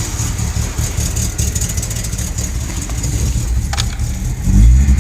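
Volkswagen Jetta engine idling roughly and unevenly with a misfire, its exhaust leak adding to the rumble. The misfire persists despite new coils, plugs, wires, cap and rotor. Near the end the engine speeds up and gets louder.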